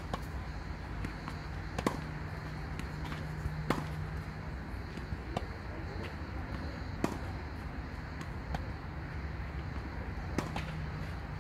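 Tennis ball struck back and forth in a rally: a sharp pop about every second and three-quarters, over a low steady hum.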